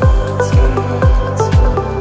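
Electronic background music with a steady kick-drum beat, about two beats a second, under held synth notes.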